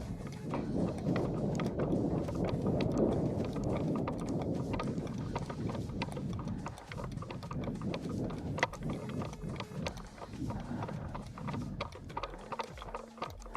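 Close, continuous rustling and shuffling footsteps of an airsoft player moving through a CQB course, with many scattered sharp clicks and knocks. A steady low hum comes in near the end.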